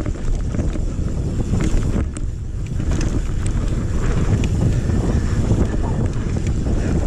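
Mountain bike riding down a dirt trail: wind rushing over the action camera's microphone and tyres rumbling on the dirt, with scattered clicks and rattles from the bike.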